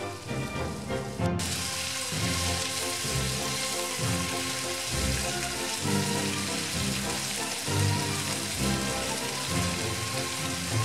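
Chicken and bell peppers in hoisin and oyster sauce sizzling in a frying pan as they are stirred, over background music; the sizzle starts suddenly about a second in.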